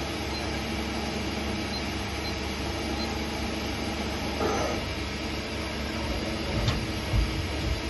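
Okuma MC-60H horizontal machining center running: a steady mechanical hum and whir, with a brief squeal about halfway through and a few knocks near the end.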